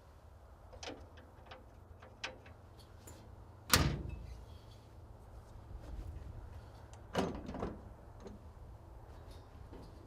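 Excavator sheet-metal service compartment doors being handled: a few light latch clicks, then a loud clunk of a door shutting about four seconds in and another clunk about three seconds later.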